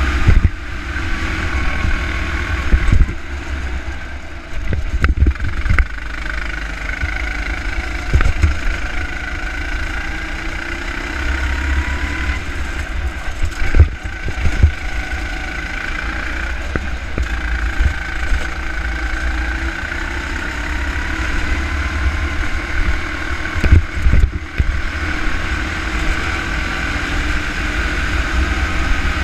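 Go-kart engine running through a lap, its pitch rising and falling with speed through the corners, under heavy wind rumble on the onboard microphone. A few sharp knocks stand out along the way.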